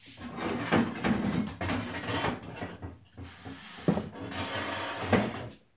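A whiteboard on a stand being turned around by hand: steady scraping and rubbing with several sharp knocks, about a second in, near four seconds and about five seconds in.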